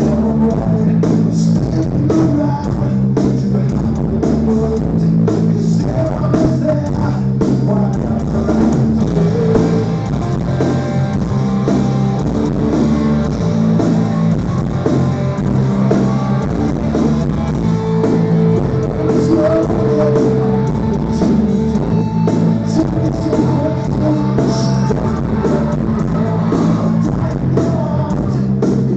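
Live rock band playing: electric guitars and bass holding chords over a steady drum-kit beat, with a sung vocal.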